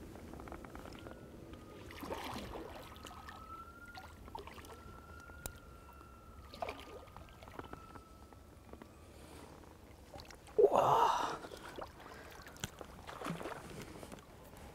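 Water splashing and sloshing as a hooked carp thrashes at the surface while being brought in, with one louder burst of splashing about eleven seconds in.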